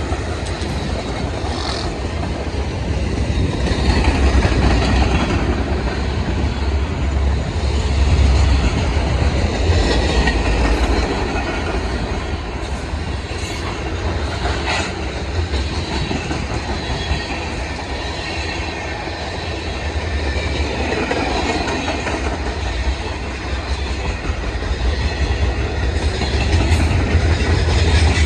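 Freight cars of a CSX manifest train rolling past in a steady, continuous rumble of steel wheels on rail, with a few sharp clicks.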